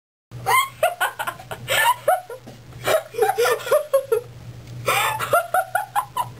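Two girls giggling and laughing in fits, starting a moment in, over a low steady hum.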